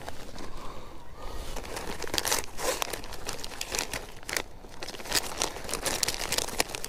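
Plastic soft-bait packages crinkling as they are flipped through and handled in a zippered soft tackle binder, in a steady run of irregular crackles.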